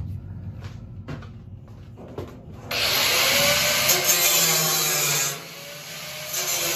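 Corded angle grinder cutting through the steel wall of an old fuel-oil tank. After a few handling knocks it starts cutting about two and a half seconds in, eases off briefly a little after five seconds, then cuts again near the end.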